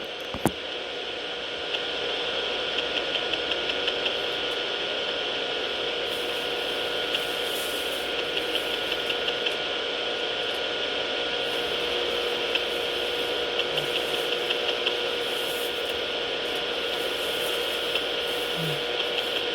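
Steady radio static hiss from a weather-radio receiver between broadcasts, with runs of quick ticking interference coming and going several times.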